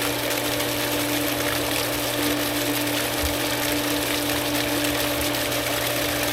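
Goulds 1/2 HP jet pump running steadily: a constant electric hum over rushing water, as it pulls an air pocket through the lake intake line while priming.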